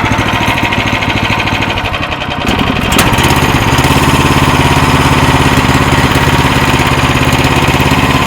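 Small gasoline engine of a Timbertuff portable sawmill running with a steady pulsing beat. About two and a half seconds in it speeds up and gets louder, with a sharp click near three seconds, then runs evenly at the higher speed.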